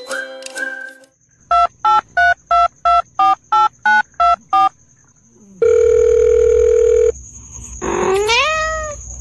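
Telephone keypad tones: ten short two-note beeps, as if a number is being dialed, then a steady tone lasting about a second and a half. A short rising call follows near the end.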